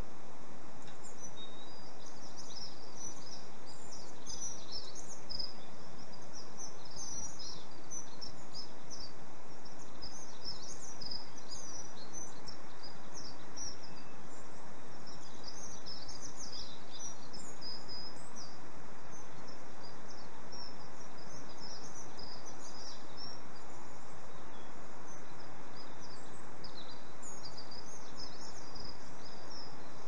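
Small songbirds chirping in many quick, high calls, busiest in the first half, over a steady background hiss.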